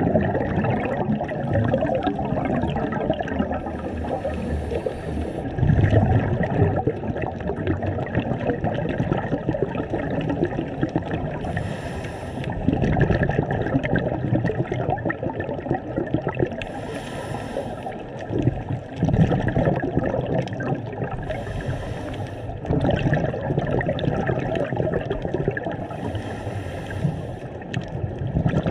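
Underwater rushing and gurgling of water heard through a submerged camera, with a brief hiss recurring every four to five seconds.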